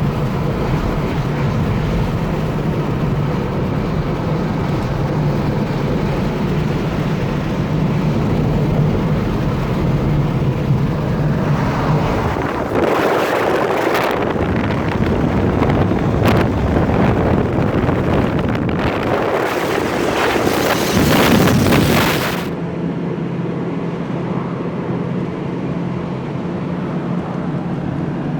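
Car engine hum and road noise heard from inside a moving car. About halfway through, a louder rush of wind and road noise takes over for roughly ten seconds, then drops away, leaving the steady hum.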